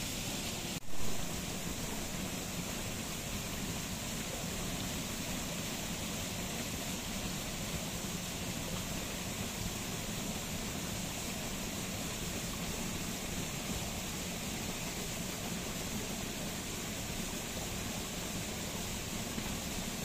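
Steady rushing ambient noise with no distinct events, broken by a momentary dropout and a short louder swell about a second in.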